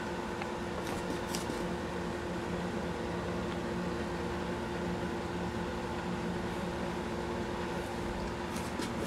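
A steady mechanical hum with a hiss over it, and a few faint high ticks about a second in and again near the end.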